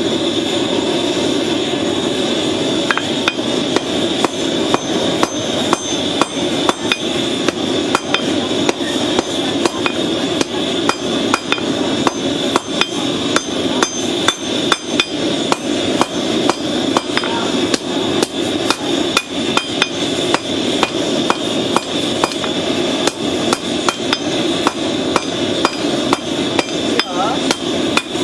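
Hammer blows on red-hot steel from a horseshoe rasp on an anvil as it is forged into a blade, about two strikes a second, starting about three seconds in. A steady rushing noise runs underneath.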